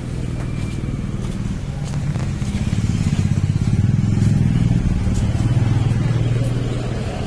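Engine of a road vehicle running close by in street traffic, a low steady hum with a fast pulse that swells about three to four seconds in and eases off near the end.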